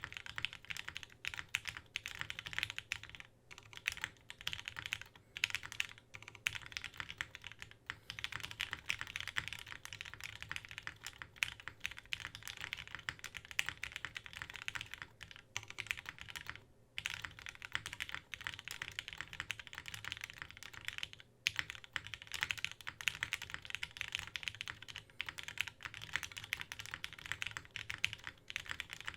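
Fast continuous typing on a Kage mechanical keyboard with lubed linear Gateron Lion switches in a polycarbonate plate. Rapid clacking keystrokes are broken by short pauses a few times.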